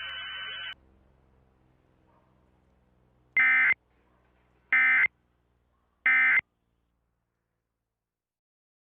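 Three short bursts of Emergency Alert System digital data tones, the end-of-message signal that closes an alert, each under half a second and evenly spaced about a second apart.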